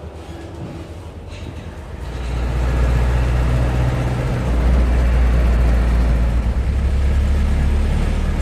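A motor vehicle's engine and road rumble, growing louder about two seconds in, then running steadily.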